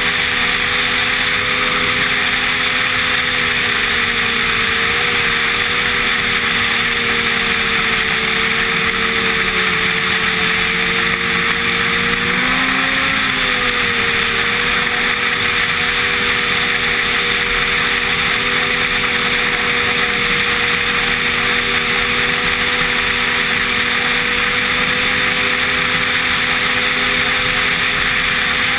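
Snowmobile engine running at a steady cruising speed under a steady hiss. About halfway through, the engine note rises briefly, then settles back.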